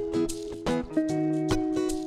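Background music with a steady beat and held chords that change about a second in.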